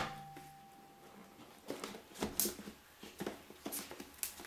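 Soft handling sounds of tablet packaging being opened: scattered rustles and a few sharp clicks, starting after a quiet first second and a half.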